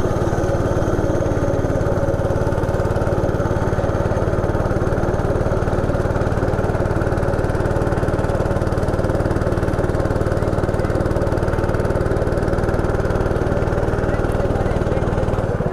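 160 cc single-cylinder four-stroke go-kart engine running at a steady speed, heard close up from on board the kart.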